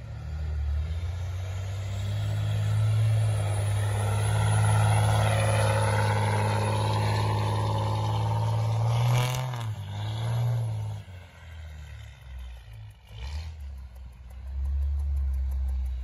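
Pickup truck engine revving hard as the truck spins its wheels through snow doing donuts. It runs loud for about ten seconds, drops back to a lower level about eleven seconds in, then picks up again near the end.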